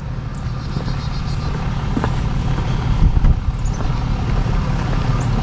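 A vehicle engine idling steadily with a low, even rumble.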